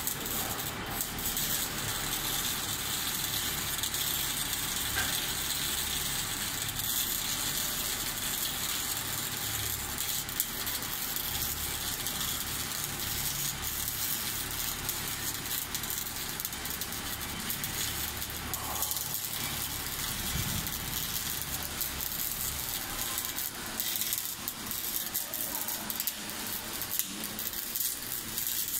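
Automatic arc welding torch laying a seam where a dished tank head joins the shell: a steady crackling hiss, with a low hum that comes and goes underneath.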